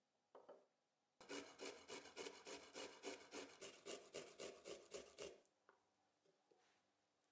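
Garlic clove being grated on a stainless-steel hand grater standing on a wooden cutting board: fast, even rasping strokes, about four a second, starting about a second in and stopping about four seconds later.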